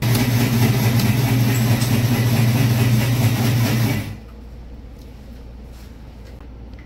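Electric ice-crushing machine running as it shaves ice for gola, a steady motor hum under a harsh grinding noise, stopping suddenly about four seconds in.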